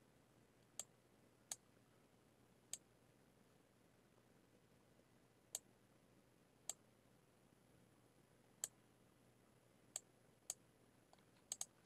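Computer mouse clicking: about ten single, sharp clicks spaced irregularly, with a quick pair near the end, over near-silent room tone.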